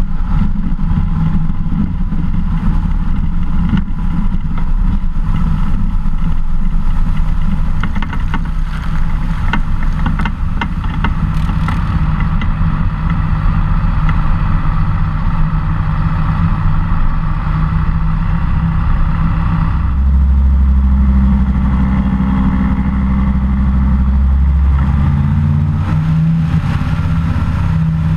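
SeaRey amphibious seaplane's pusher engine running steadily as the plane taxis on the water, with water rushing and splashing along the hull. About two-thirds of the way through the engine gets louder, and its pitch shifts a little near the end.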